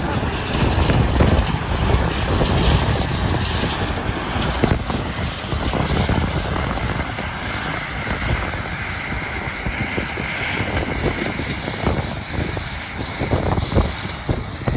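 Wind buffeting the microphone over the steady running of harvest machinery in a soybean field.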